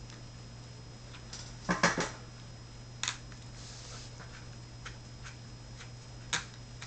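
Small hand tools and metal parts clicking and knocking while an RC car's motor mount screw is being worked: a quick cluster of three knocks about two seconds in, a single click a second later, and another near the end, over a steady low hum.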